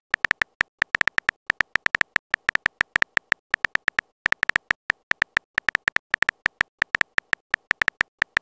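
Simulated phone-keyboard typing sound of a texting-story app: rapid, short tapping clicks, several a second at an uneven pace, with a brief pause near the middle.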